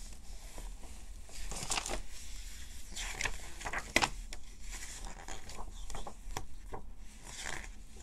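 Pages of a hardcover picture book being turned by hand: paper rustling and flapping, with several sharp paper snaps, the loudest about four seconds in.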